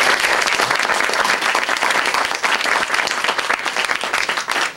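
Audience applauding, a dense patter of clapping that thins into scattered separate claps near the end.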